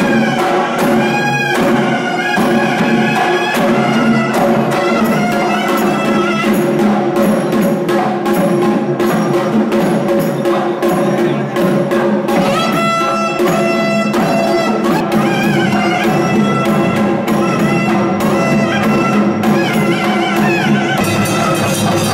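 South Indian temple music: a wavering melody over a steady drone, with drum strokes throughout.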